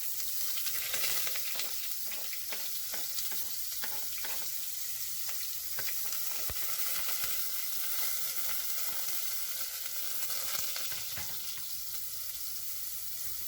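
Sliced onion frying in hot coconut oil in a pressure cooker: a steady sizzling hiss with many small scattered pops and crackles.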